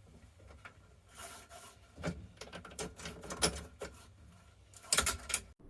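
A scatter of light clicks and knocks, as of small objects being handled.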